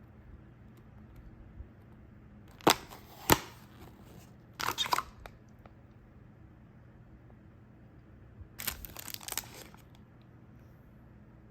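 Snack packaging being handled: two sharp clicks, then crinkling and tearing of wrapping in two short stretches, the second the longer.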